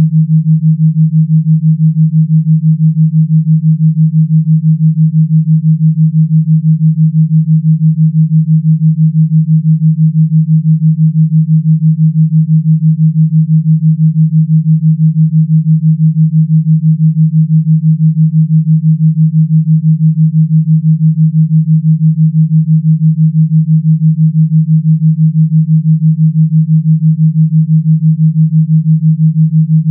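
A steady, low, electronically generated pure tone that pulses rapidly and evenly in loudness. It is a tone-only frequency track with no music.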